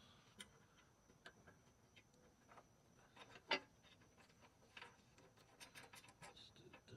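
Faint, scattered small metal clicks and light rubbing of a bolt, washer and nut being fitted by hand, with one sharper click about halfway through and a quick run of clicks near the end.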